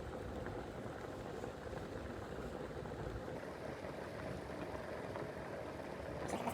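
Pot of garlic and turmeric water boiling, a steady bubbling hiss, with a brief knock near the end.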